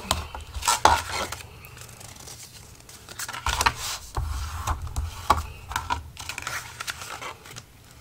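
Paper being folded along score lines and its creases burnished with a bone folder: irregular scraping strokes and light clicks as the tool slides over the paper on the scoring board.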